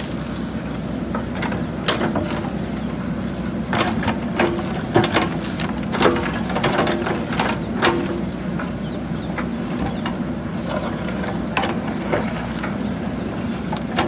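JCB 3DX backhoe loader's diesel engine running steadily while the backhoe bucket digs into soil, with clanks and scrapes from the bucket and its linkage, most of them between about four and eight seconds in.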